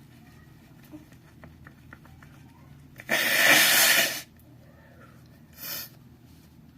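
A person sneezing once, a loud, spraying blast about three seconds in that lasts about a second. A short, quieter breathy burst follows about two seconds later.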